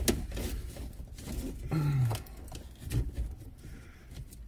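Clicks, knocks and rustling from car wiring and connectors being handled and pushed aside behind a dashboard, with a short grunt about two seconds in.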